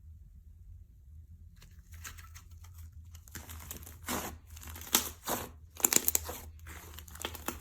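Slime being handled: squished and pulled with crinkly, tearing sounds that come in short irregular bursts, starting about two seconds in and loudest around the middle.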